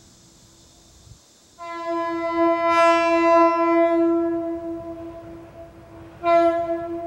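Steam locomotive whistle, heard as one long blast that fades away, then a second short blast near the end.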